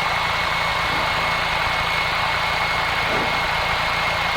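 Single-engine light aircraft's piston engine and propeller idling steadily, heard from inside the cockpit, with a fast even low throb and a thin steady whine above the engine noise.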